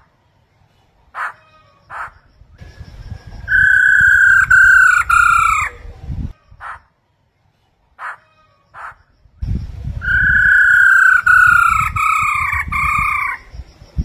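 Black-throated laughingthrushes calling: short single call notes, then a clear whistled phrase of several notes stepping down, about two seconds long, a few more short calls, and a second, longer whistled phrase about ten seconds in. A low rumble sits under both whistled phrases.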